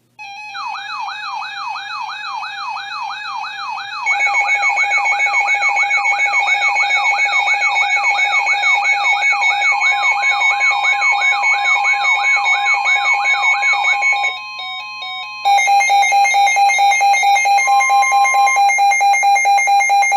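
Electronic emergency alert tones for a severe thunderstorm warning. A warbling siren tone rises and falls about twice a second, and steady higher tones join it after about four seconds. After a short dip near fourteen seconds, a steady, rapidly pulsing alarm tone takes over.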